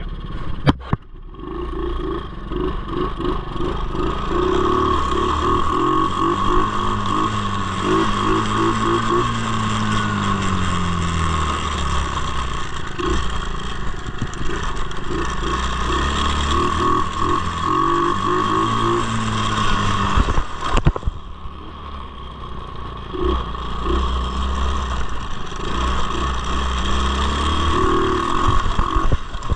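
A motor vehicle engine running with its revs rising and falling, over a steady high whine. It drops away briefly partway through, with a few sharp clicks.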